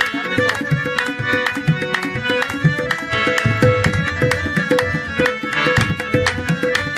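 Qawwali-style devotional music: tabla keeping a quick, even rhythm under a sustained melody line.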